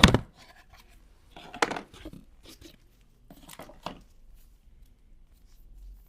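Close-up handling noise, likely a knife and its packaging being handled: a series of short scrapes and clicks, loudest at the start and about a second and a half in, dying away to faint ticks after about four seconds.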